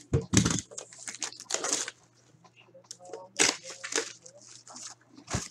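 Plastic wrapping crinkling and tearing as a metal trading-card tin is unwrapped by hand, in several short, sharp bursts.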